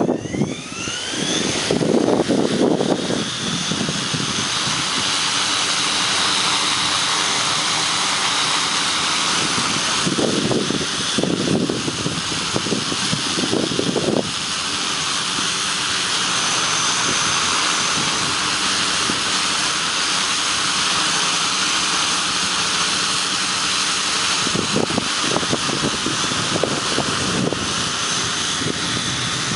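Multirotor motors and propellers of a 5-litre agricultural spraying drone flying. There is a rising whine in the first two seconds as the motors spin up, then a steady high whine, with low gusty rushing at times.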